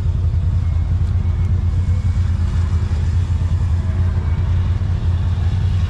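ATV engine running steadily at low revs, with a deep, even drone and no revving up or down.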